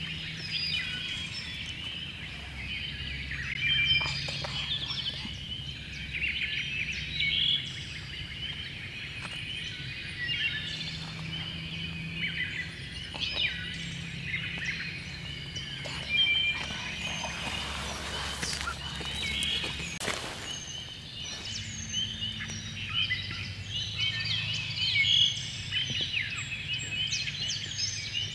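Dawn chorus of many songbirds, dense overlapping chirps and trills, over a low steady hum.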